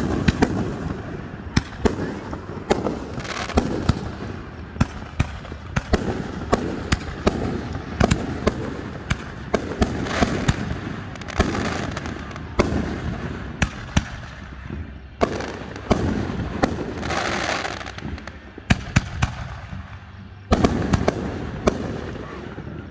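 Fireworks display: aerial shells bursting in quick succession, dozens of sharp bangs with a rumbling echo between them. There is a short lull, then a fresh loud volley about three-quarters of the way through.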